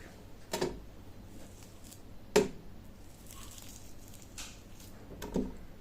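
Three short knocks with faint handling noise between them, from a frozen, ice-solid lump of masala-marinated chicken being handled; the middle knock is the loudest.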